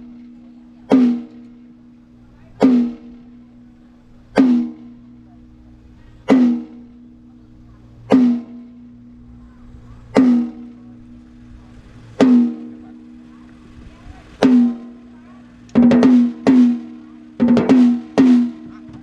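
A single drum on a live-music stage, struck once every couple of seconds during a sound check, each hit ringing on in a steady tone until the next. In the last few seconds the hits come in quicker groups of two and three.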